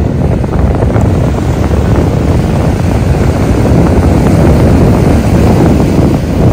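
Wind buffeting the microphone in a loud, steady rumble, over the wash of small surf breaking along the shore.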